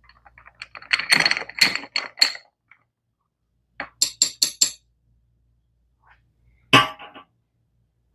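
A metal spoon stirring ice cubes in a cup of beer, clinking against the ice and the cup. This is followed by four quick ringing clinks in a row and, near the end, one louder clink.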